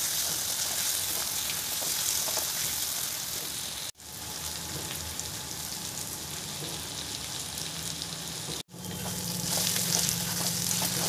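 Mushroom and tomato curry sizzling as it fries in a steel kadai, stirred with a spatula. The sound cuts out abruptly for an instant twice, about four seconds in and near nine.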